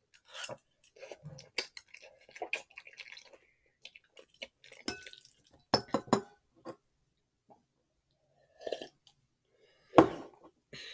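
Eating noodles from a dish: a utensil clicking and clinking against the dish many times, with chewing in between. A louder knock near the end.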